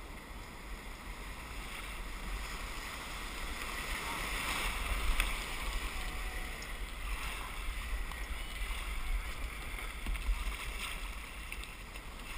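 Broken surf foaming and rushing around a kayak being paddled out through the whitewater, with a low wind rumble on the microphone. The rush of water swells about four seconds in and stays fairly loud after.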